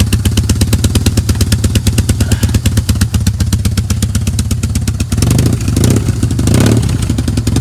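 BMW R1200C boxer-twin engine, fitted with an aftermarket exhaust, idling with an even, loping pulse, then blipped up in revs a few times from about five seconds in. The owner suspects a small exhaust leak where the pipe was working loose.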